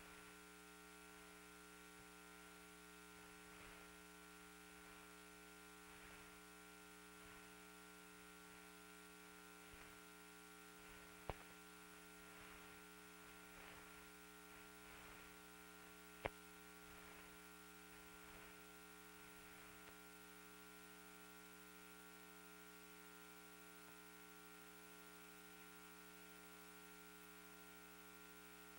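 Near silence: a steady electrical hum with faint crackle and two sharp clicks, about 11 and 16 seconds in.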